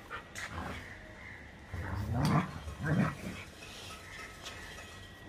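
German Shepherd dogs play-fighting, with two loud growls about two and three seconds in and a few light scuffling clicks before them.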